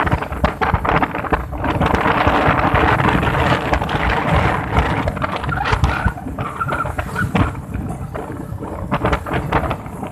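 Wind buffeting the microphone over a running vehicle on a rough, damaged road, with many short knocks and rattles from the bumps.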